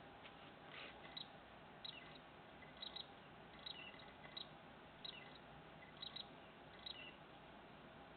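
Faint, short high-pitched chirps from a small animal, about ten in all and roughly one a second, some in quick pairs and some sliding down in pitch, over a steady low hiss.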